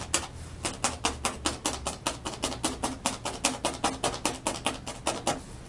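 Rapid, even clicking or tapping, about six a second, as hands press strips of wool roving down onto a paper backing; it stops shortly before the end.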